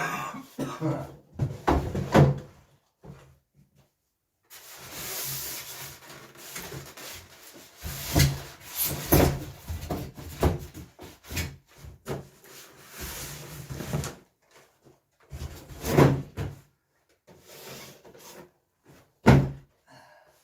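A diesel heater unit and its packaging being handled: scattered knocks and bumps, with a long stretch of rustling and scraping in the middle.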